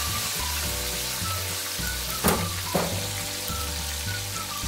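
Hot fat and meat juices sizzling steadily in the roasting pan around a freshly roasted beef roast, with two sharp taps about two seconds in, half a second apart.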